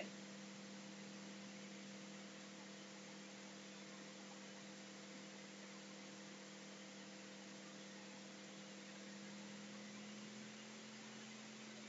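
Near silence: a faint, steady electrical hum with a low hiss beneath it, unchanging throughout.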